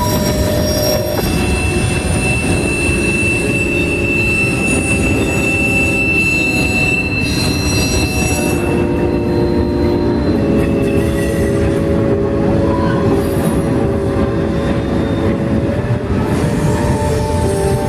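CSX freight train cars rolling steadily past, loud wheel-on-rail noise with high, drawn-out wheel squeal, the double-stack intermodal container cars following the mixed freight cars.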